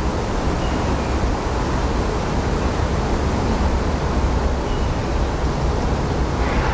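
Waterfall running: a steady, even rush of falling and splashing water.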